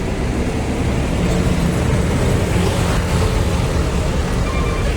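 Steady rumble of road traffic and vehicle engines, with no horn sounding.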